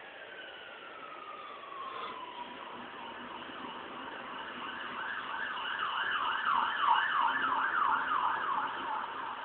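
A siren, slowly gliding down in pitch, then switching about five seconds in to a fast up-and-down wail of two to three sweeps a second. It grows louder as it goes on.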